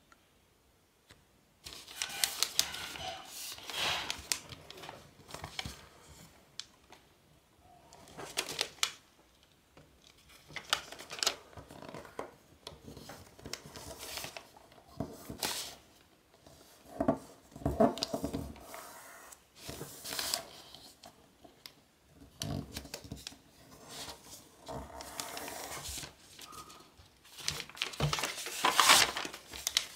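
A sheet of origami paper being folded and creased by hand, giving irregular bursts of rustling and crinkling that start about two seconds in. It is the sound of precreasing.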